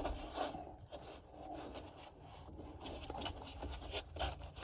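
Faint rubbing and scraping with a few light knocks, the sound of wire and gear being handled and dragged.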